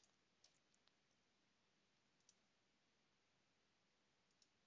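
Near silence broken by a few very faint computer mouse clicks: one about half a second in, one just after two seconds, and one near the end.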